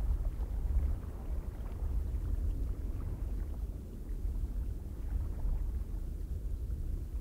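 Cold wind ambience: a low, rumbling rush of wind that rises and falls unevenly, with no steady pitch.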